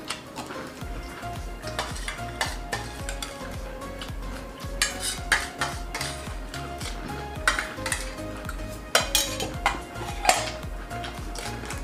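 Spoons clinking and scraping on steel plates and bowls, with eating sounds as pani puri are dipped and eaten, over background music with a low, steady beat.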